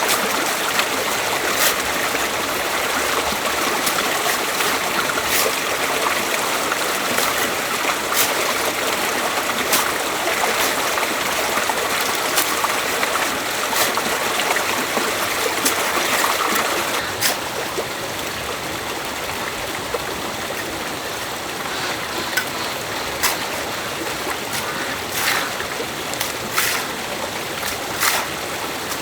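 A stream running steadily, with scattered sharp knocks every second or two. About seventeen seconds in the water noise gets a little quieter and duller.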